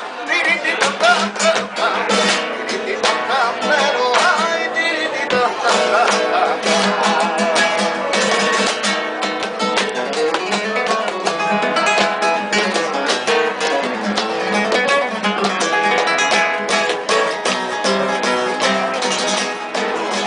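Flamenco guitar playing steadily, with a man's flamenco cante wavering over it in the first several seconds.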